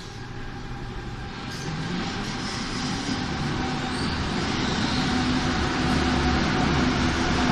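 Berlin U-Bahn train pulling out of an underground station, getting steadily louder as it gathers speed and its cars run past.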